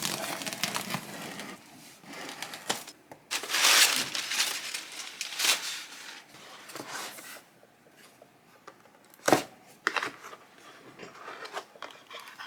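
Keyboard packaging being handled and opened: irregular crinkling, rustling and tearing, loudest in a long burst about four seconds in, with a single sharp knock about nine seconds in.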